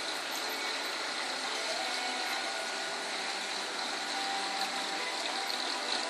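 Steady hum and hiss of reef aquarium equipment: pumps and circulating water running without a break.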